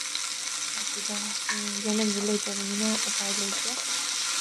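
Onions and green chillies frying in hot oil in a wok, a steady sizzle, with a spatula stirring through them. A low pitched tone comes and goes in the background.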